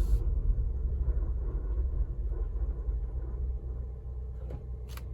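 Cabin drive noise of a 2022 Ford Bronco Badlands with the seven-speed manual: a steady low rumble from the road and drivetrain, easing off somewhat over the last couple of seconds. The owner is listening for a grinding, scraping noise that he says is neither brakes nor clutch.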